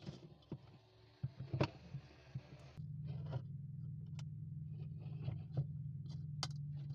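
Light clicks and scraping of hand work on small parts, then a steady low hum starts about three seconds in, with occasional clicks over it.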